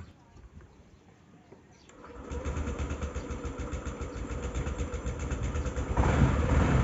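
Honda Activa 6G scooter's single-cylinder engine starting about two seconds in and then running with a steady rhythmic beat, getting louder toward the end.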